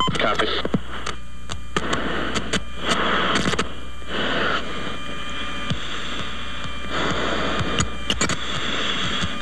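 Radio static between transmissions: a hiss that comes and goes in stretches of a second or more as the channel keys on and off, with scattered clicks over a steady low hum.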